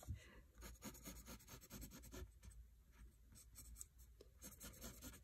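Graphite pencil scratching on lined notebook paper in many quick, faint hatching strokes.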